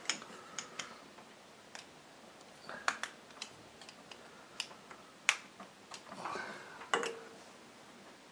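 Gudgeon-pin circlip being worked out of a motorcycle piston with a small tool: irregular sharp metal clicks and small scrapes, the loudest about five and seven seconds in.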